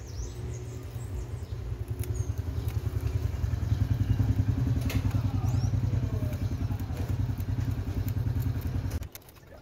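An engine running steadily with a low, fast-pulsing rumble that cuts off suddenly near the end.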